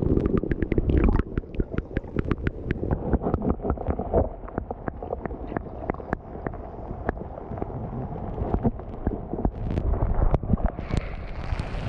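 Shallow sea water heard underwater: a muffled, low churning rumble of moving water, peppered with many small crackling clicks. Near the end the sound surfaces and opens up into a brighter hiss of wind and lapping water.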